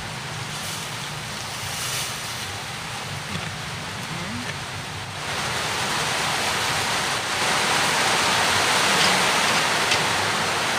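Chicken with garlic and ginger sizzling in a cooking pot, a steady hiss. About five seconds in the sound grows louder and fuller as hot water goes into the pot.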